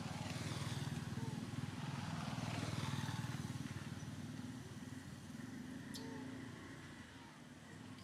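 An engine running, loudest over the first three seconds and then fading away. A few faint high chirps sound above it.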